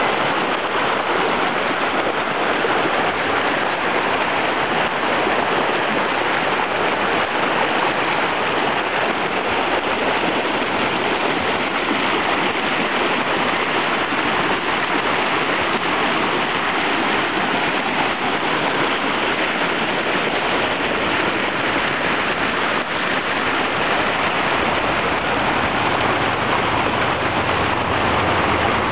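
Rain-swollen creek running high and fast, close to flooding: a steady, loud rush of water.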